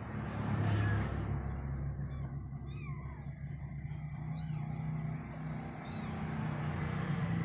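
Very young kitten mewing: about four short, high-pitched cries that rise and then fall, over a steady low hum.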